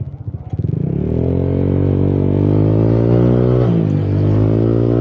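Honda Click 125i scooter's single-cylinder engine accelerating from low revs: its note climbs for about a second, holds steady, dips briefly a little past halfway, then holds again. It is strong again now that the loose crankshaft pulley nut has been retightened.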